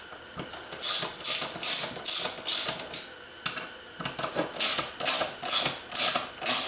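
Socket ratchet wrench clicking in short repeated strokes, about two or three a second, in two runs with a pause about halfway, while tightening bolts that squeeze the clutch plates down against their springs.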